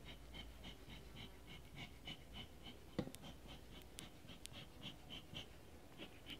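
Bee smoker bellows being pumped, giving a fast, even run of faint squeaky puffs, about three or four a second. There is one sharp knock about halfway through.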